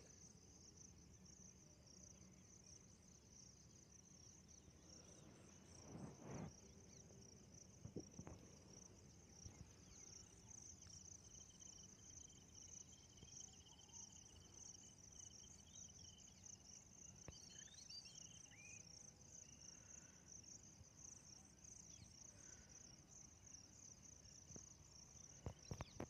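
Faint, steady, high-pitched insect chirring, with a few soft thumps about six and eight seconds in.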